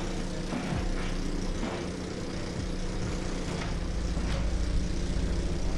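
Diesel engines of heavy machinery, a wheel loader and a hydraulic excavator, running steadily, the low rumble growing louder in the second half, with scattered clatters.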